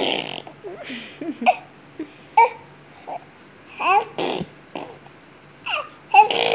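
A six-month-old baby babbling and cooing in short high-pitched bursts, with a couple of breathy noises among them.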